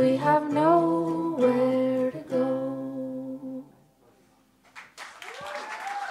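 A singer holds long sung notes over a lower sustained note, and the music ends about two-thirds of the way through. After a second's hush, the audience starts applauding and whooping.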